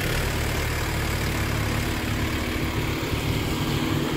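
Diesel tractor engine running at a steady speed, an even low hum that doesn't rev up or down.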